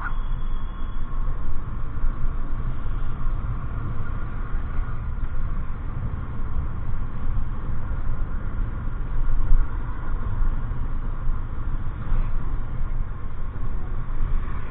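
Steady low rumble of a motorcycle on the move, engine and wind noise with no distinct events.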